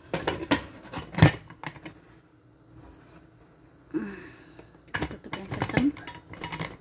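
Aluminium pressure cooker lid clanking and clicking against the pot as it is set on and turned to lock shut. A cluster of metal clanks comes in the first second or so, the loudest just after a second in, then more clatter about five seconds in.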